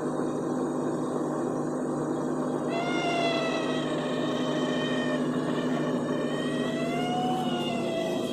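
Refrigerator running with a steady hum; about three seconds in, a high whining tone joins it, wavering slowly up and down in pitch like a cat's meow.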